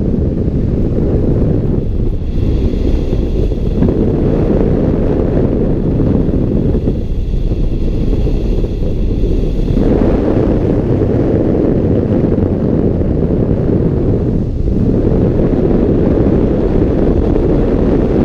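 Low, steady rush of airflow buffeting a hang glider's wing-mounted camera microphone during a fast glide, the noise shifting in character every few seconds.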